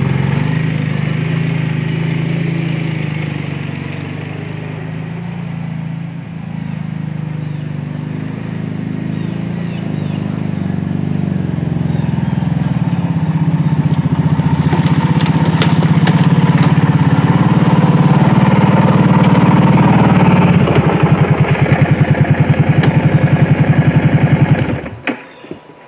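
Kawasaki Brute Force 750 ATV's V-twin engine running and working harder, growing louder through the middle. It then drops to an even, pulsing idle and shuts off near the end.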